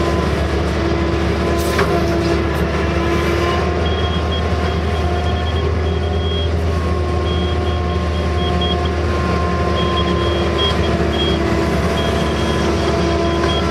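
Case CX160 excavator's diesel engine and hydraulics running steadily under digging load, heard from inside the cab as a constant low hum with several held tones. A high thin tone cuts in and out from about four seconds in, and there is a single sharp click near two seconds.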